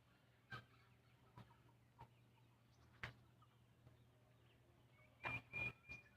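Chickens in a poultry shed, faint: scattered short clucks and clicks about once a second, then a brief high-pitched call about five seconds in, over a low steady hum.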